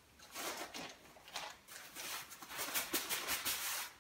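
Fabric rustling and crinkling as a rolled inflatable sleeping pad is worked out of a tight stuff sack, in irregular handfuls that grow denser and louder over the last second and a half, then stop.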